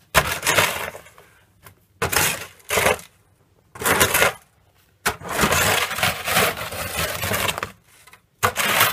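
Snow shovel scraping and scooping through packed snow in about five strokes, each roughly a second long with short pauses between. The longest, near the middle, runs about three seconds.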